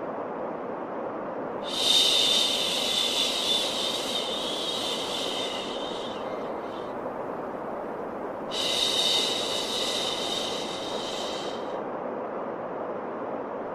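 Baby-soothing white noise: a steady low hiss with two long 'shhh' shushing sounds over it. Each shush lasts about three to four seconds, the first starting about two seconds in and the second about eight and a half seconds in.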